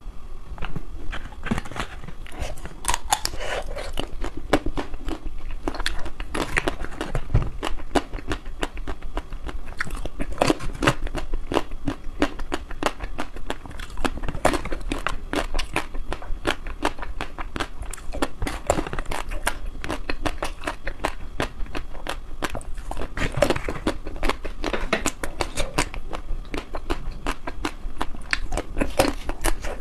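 Crackling and crunching close to a clip-on microphone: a box of chocolate balls in a plastic tray being handled and opened, and a chocolate ball being bitten and chewed, with many sharp crackles.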